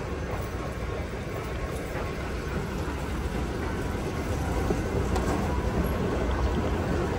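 Steady low rumble and hiss of a deep underground subway station, growing a little louder about four seconds in as the escalator down to the platform is reached.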